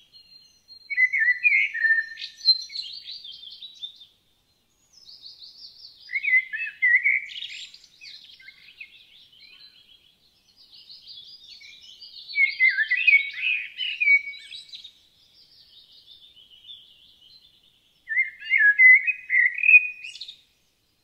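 Common blackbird singing: four separate phrases of warbling song, a few seconds apart.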